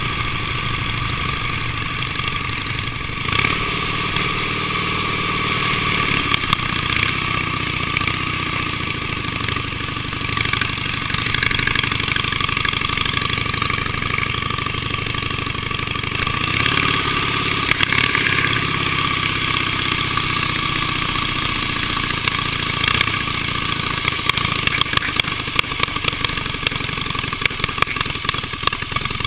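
Engine of an early vintage racing motorcycle running under way, heard from on the bike. The engine note rises and falls a few times with the throttle and turns choppier near the end.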